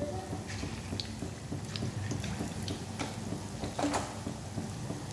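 Chicken pakora batter deep-frying in hot oil in a wok: a steady sizzle full of small crackling pops, with one louder pop near the end.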